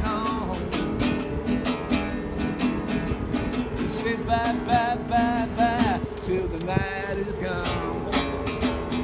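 Acoustic guitar strummed by hand in a steady rhythm, about three strokes a second, between sung lines. About halfway through, a high, wavering melody line sounds over the strumming.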